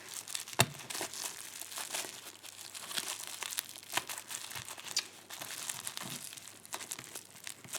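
Wrapping of a small package crinkling and rustling in the hands as it is handled and pulled at to get it open, with scattered sharp crackles.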